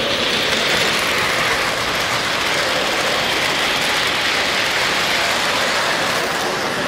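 O gauge model freight train rolling past close by, its metal wheels rattling steadily on the track.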